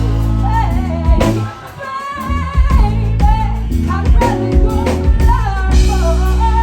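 Live band playing a slow soul ballad: a woman sings the lead melody over electric bass, guitar, keyboard and drum kit, the band easing back briefly about one and a half seconds in before coming up again.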